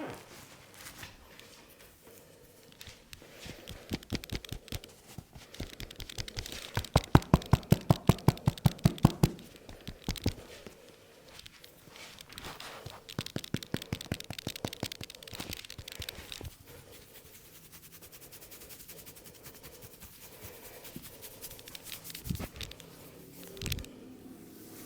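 Hands working a head massage: rubbing and scraping on hair and skin, with a run of rapid slaps, about five a second for a couple of seconds, the loudest part, and looser rhythmic tapping after it.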